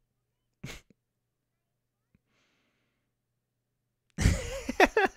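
A man's short breath out about a second in, then near the end he breaks into laughter: a loud breathy burst followed by quick choppy bursts of voice.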